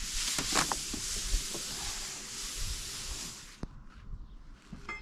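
Aerosol spray can hissing in one long continuous spray that cuts off suddenly about three and a half seconds in, followed by a couple of light clicks.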